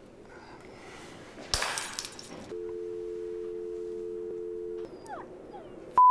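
A phone call being cut off: a short burst of handset clatter, then a steady two-note telephone dial tone for about two seconds that stops suddenly. A short, loud, high beep comes at the very end.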